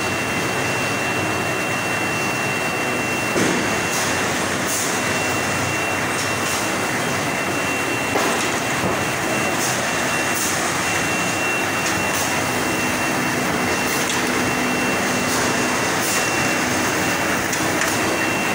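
Automatic 5-ply corrugated board pasting machine running: a steady mechanical rush with a thin high whine over it, and a couple of short knocks, one about three seconds in and one about eight seconds in.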